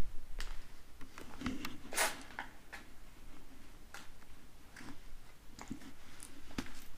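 Footsteps crunching and scraping over a debris-strewn floor: a scattering of irregular crunches and clicks, the loudest about two seconds in.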